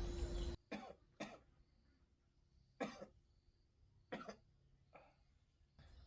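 A sick man coughing: a few short, separate coughs on a quiet background, two close together and then single ones a second or more apart. Outdoor bird chirping cuts off abruptly just after the start.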